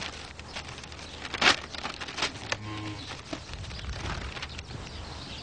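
Sheets of a paper dossier rustling and flicking as they are leafed through, in a few sharp rustles, the loudest about a second and a half in.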